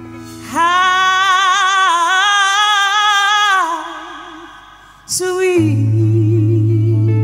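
A female soul singer singing live with accompaniment: a long held note with wide vibrato that fades away, then a new sung line about five and a half seconds in over a strong low sustained bass note and soft held chords.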